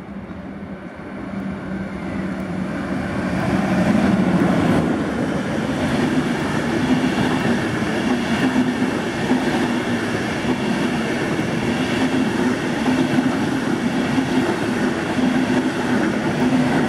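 Locomotive-hauled Intercity passenger train passing close by. It grows louder over the first few seconds as it nears, then its wheels clatter over the rails in a steady beat of about one pulse a second as the coaches go past.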